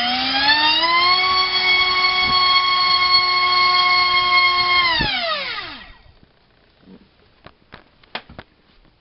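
Multistar Viking 1808 2600kV brushless outrunner motor spinning a Dalprop 5045 bullnose three-bladed prop on a 3S battery during a thrust test: a high whine rising in pitch over the first second, held steady for about four seconds, then falling away as the motor winds down about five seconds in. A few light clicks follow near the end.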